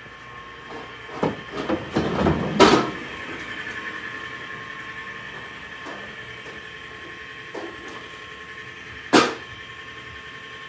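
Tractor running steadily, with a burst of clanks and knocks about one to three seconds in and one loud sharp bang near the end.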